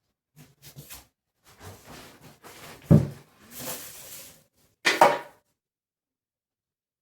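Household handling sounds: light clicks and rustling, a heavy thud about three seconds in and a sharp knock about two seconds later.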